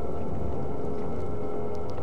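Dark ambient soundtrack music: a sustained, eerie drone of held tones over a low rumble.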